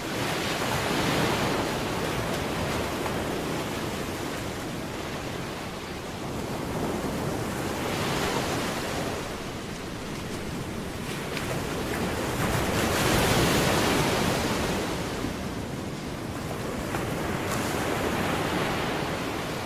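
Ocean surf: the rush of waves breaking and washing back, swelling and fading four times.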